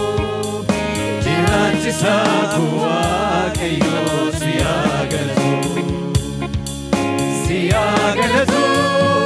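A church worship team singing a gospel song: a lead singer on a microphone with the choir joining in, over amplified instrumental backing with a steady beat.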